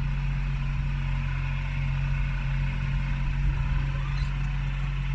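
Yanmar B22 mini excavator's diesel engine running steadily, with a constant low hum. The footage is sped up to double speed, which raises its pitch.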